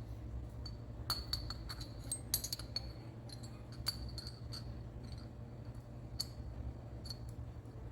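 Small steel engine parts clinking and tapping lightly as motorcycle rocker arms are set into place in the cylinder head, a dozen or so scattered small metallic clicks with a brief ring, over a steady low hum.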